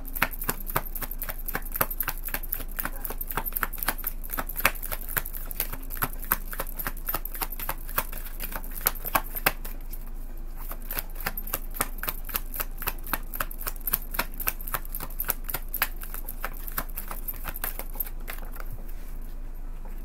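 A deck of tarot cards shuffled by hand: a long run of quick card flicks and slaps, easing off briefly about halfway and thinning out near the end.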